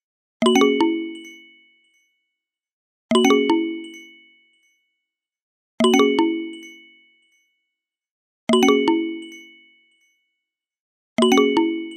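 A stock chime sound effect repeating five times, about every 2.7 seconds. Each time a quick cluster of bell-like struck notes rings and fades away.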